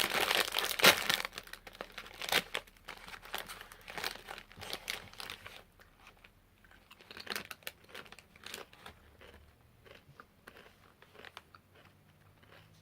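A crinkly potato chip bag being torn open and rummaged through, loudest in the first couple of seconds, then sparser crackling and a few quieter crunches.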